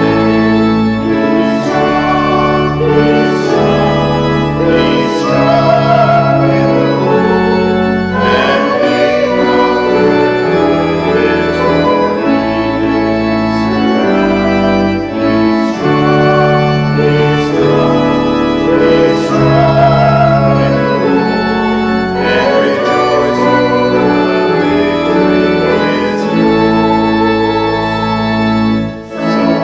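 Church organ playing a slow hymn in held chords over a stepping bass line, with a brief break between phrases near the end.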